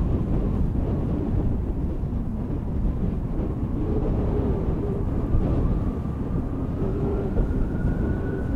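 Bombardier Global 7500's twin GE Passport turbofans running with a deep, steady rumble. From about halfway through, a whine rises slowly in pitch as the engines spool up.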